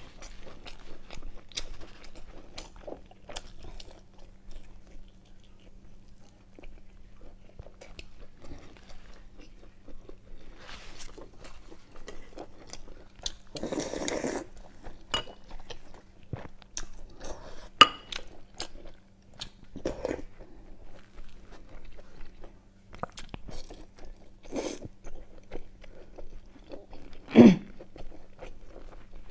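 Close-miked chewing and wet mouth sounds of someone eating braised meat, with many small clicks and smacks. About fourteen seconds in comes a long slurp of soup from a spoon, and near the end there is one louder, sudden mouth sound.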